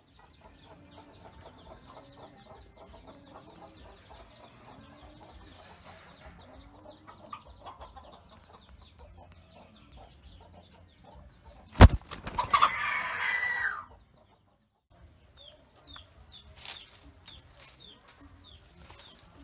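Chickens clucking softly and low for the first ten seconds or so. About twelve seconds in there is a sharp knock, then a loud rooster crow lasting about two seconds. After a brief silence come faint short chirps.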